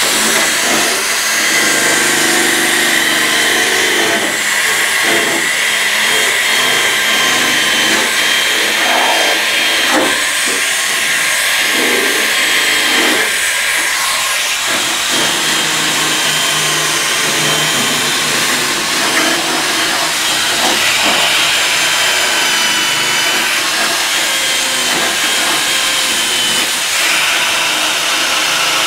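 A handheld electric power tool running steadily with a continuous hissing whine, its lower hum rising and falling as it is worked against the truck's bed rail. A few light knocks come around ten to thirteen seconds in.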